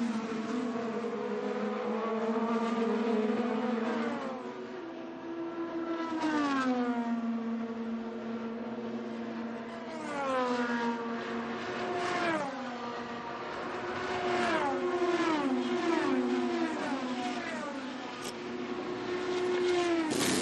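IndyCar's 2.2-litre twin-turbo V6 at racing revs. The pitch holds high on the straights, then drops in quick steps several times as the car brakes and downshifts for corners, and climbs again under acceleration.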